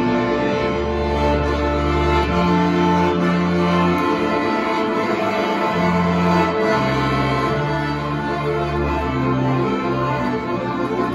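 Instrumental folk tune: a bowed double bass plays long held low notes under a sustained melody from an accordion.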